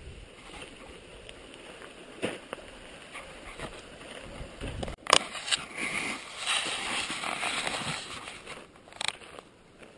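Outdoor rustling and handling noise with a few sharp clicks, the loudest about five seconds in, followed by a few seconds of louder rustling.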